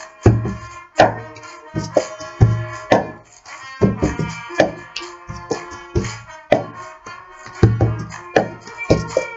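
Cup-song rhythm: claps and a plastic cup knocked and slapped on a table, sharp knocks about twice a second, over a music track with choir and trumpets.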